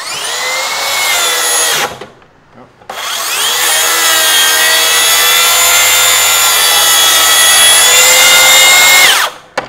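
Makita 36-volt cordless track saw cutting a wood trim board. The motor spins up with a rising whine and cuts for about two seconds, then winds down when the operator's finger slips off the trigger. After a short pause it starts again and cuts steadily for about six seconds before winding down.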